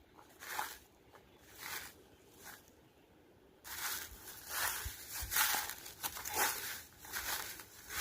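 Footsteps crunching on the ground: three separate steps about a second apart, then, a little past halfway, a continuous crunching and crackling.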